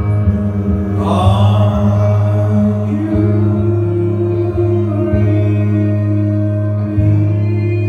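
Live electric guitar music: a steady low drone under long held notes, with a new chord coming in about a second in.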